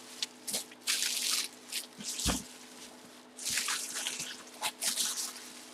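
Bubble wrap and plastic packing crinkling and rustling in irregular bursts as they are pulled off a full-size football helmet, with one soft knock about two seconds in.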